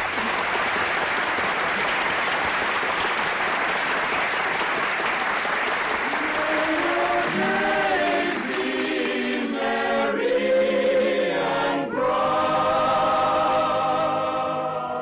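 Studio audience applause breaks out at the end of a song. About six seconds in, orchestra and choir music swells in over the fading applause and settles on a held chord that fades near the end.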